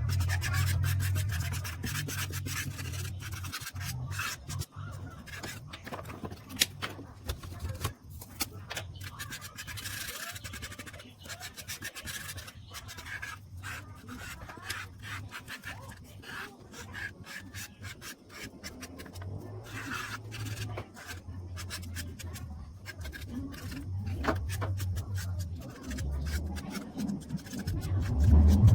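Pencil scratching and rubbing on paper in many quick, irregular strokes, as in sketching and shading, over a steady low hum.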